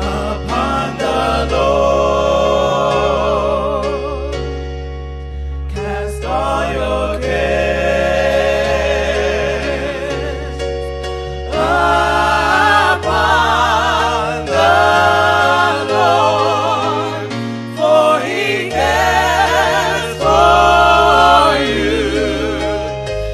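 Gospel music: voices singing a slow song with wavering vibrato over sustained electric keyboard chords, in phrases broken by short pauses.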